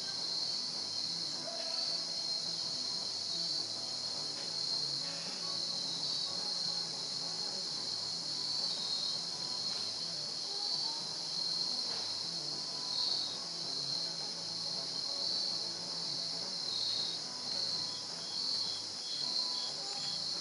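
Steady high-pitched insect chorus that swells and fades a little, with a quick run of evenly spaced chirps near the end.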